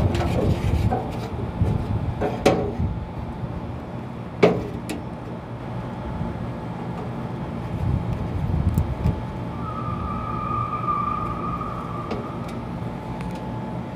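A few sharp knocks and clatters as the opened casing of a split AC outdoor unit is handled, over a steady low rumble. About ten seconds in, a steady high tone sounds for about two seconds.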